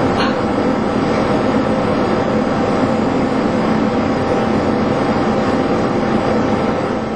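Loud, steady machinery drone of an icebreaker's deck gear, an even noise with several steady hum tones through it. A brief high squeak sounds just after the start.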